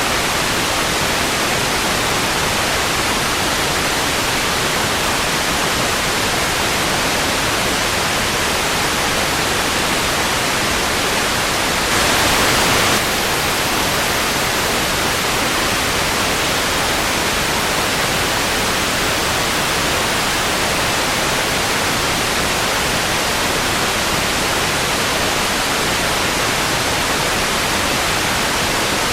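Steady hiss of analogue TV static (white noise), with one slightly louder, brighter swell lasting about a second midway through.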